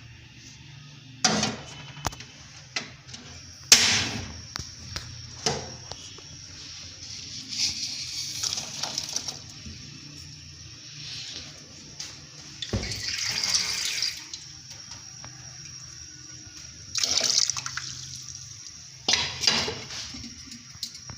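Water being poured or sloshed in several short spells, with scattered knocks and clatter, as of containers being handled.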